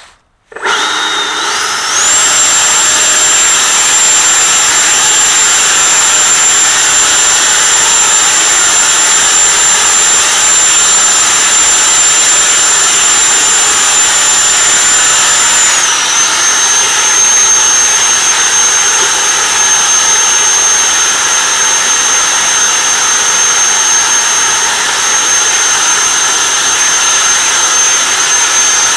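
Homemade leaf blower starting up about half a second in, its whine climbing quickly to a high, steady pitch over a loud rush of air. About halfway through, the whine drops slightly in pitch and holds there.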